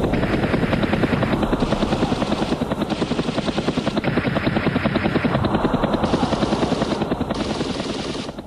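Helicopter rotor beating at a fast, even pulse, fading out near the end.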